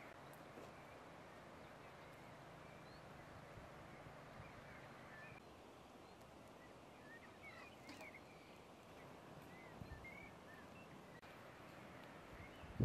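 Faint mountain-forest ambience: a soft, steady hiss, with distant birds chirping faintly through the middle.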